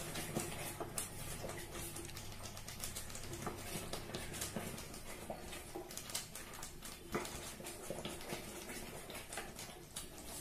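Wooden spatula stirring thick bottle-gourd halwa in an aluminium pot: irregular scrapes and soft taps against the pot's sides and bottom.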